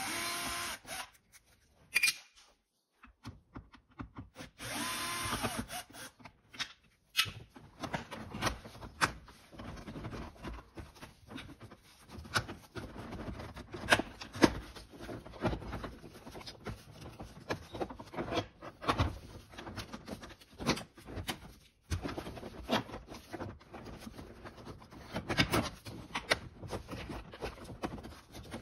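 A 12 V cordless drill-driver running in three short bursts in the first six seconds, backing out the screws that hold a VW Golf Mk5 glovebox. From about seven seconds in come irregular clicks, knocks and plastic rubbing as the glovebox is worked loose from the dashboard.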